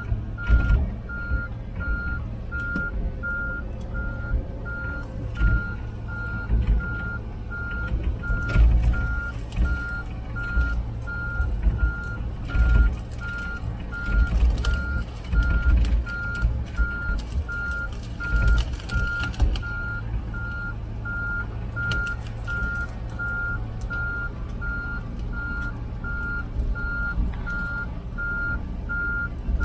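Komatsu PC16 mini excavator travelling on its tracks: its travel alarm beeps steadily, about two beeps a second. Underneath are the diesel engine's running and irregular low knocks and rattles from the tracks and machine.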